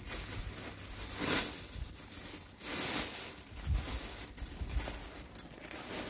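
Clear plastic bag crinkling in short bursts as it is handled and opened, about a second in and again near the middle, with a few soft low thumps later.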